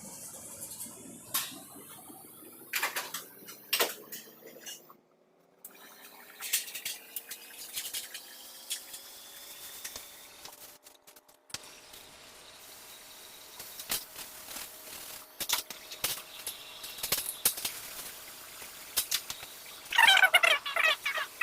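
Water running into a container, its tone rising slowly as the container fills and then holding steady, with scattered clicks and knocks of handled metal parts.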